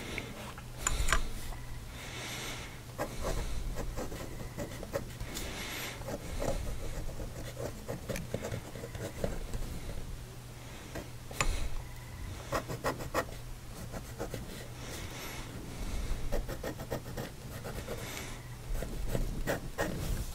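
Steel fude nib on a fountain pen scratching across paper in uneven strokes, with sharp ticks as the nib is set down and lifted. The scratchiness is the nib's bad feedback, a coarseness that the writer puts down to the way the plating is done.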